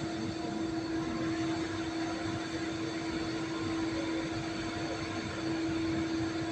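Steady mechanical drone holding one constant pitch, over an even wash of background noise.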